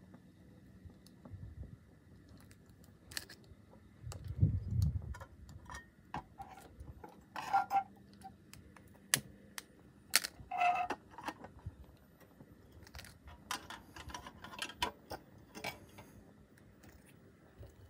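Scattered light metallic clicks and clinks as the tinplate parts of a Mamod toy traction engine are handled and fitted, the canopy among them. Two louder clinks ring briefly in the middle, and there is a dull bump about four seconds in.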